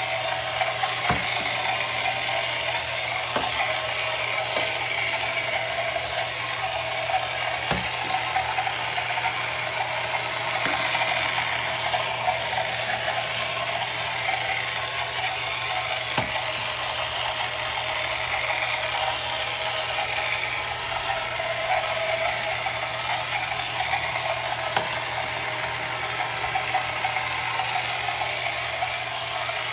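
Battery-powered 1968 Ideal Motorific Boaterific toy outboard motor running steadily, its small electric motor spinning the propeller to drive the toy boat through the water, with a few faint clicks.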